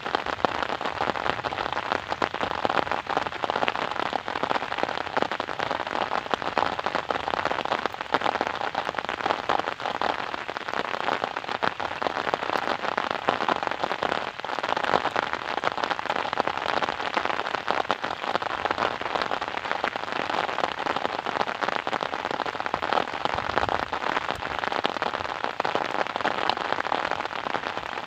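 Steady rain falling, a dense patter of raindrops hitting a surface.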